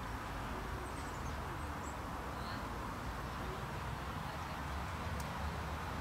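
Shallow stream flowing over stones: a steady, gentle rush of water, with a low steady rumble beneath and a few faint, high bird chirps about a second and two and a half seconds in.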